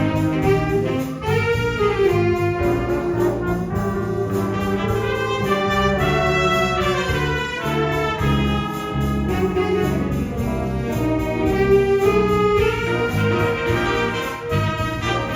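High school jazz ensemble (big band) playing a swing chart, with the brass and saxophone sections in full ensemble lines over a steady beat.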